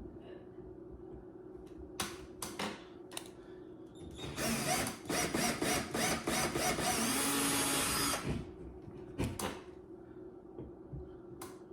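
Power drill with a 3/16-inch bit drilling a hole into the wall for about four seconds, the motor stuttering in short pulses at first and then running steadily. A few sharp clicks and knocks come before and after.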